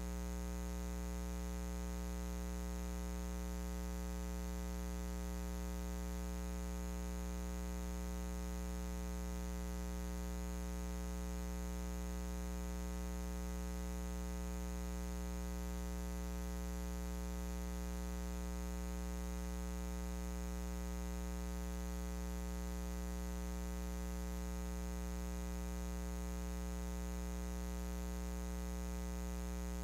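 Steady electrical mains hum: a low buzz with a stack of evenly spaced overtones, under a faint hiss.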